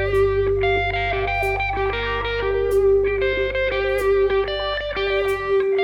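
Electric guitar music: picked notes ringing over a steady held note and a low drone, which drops out near the end.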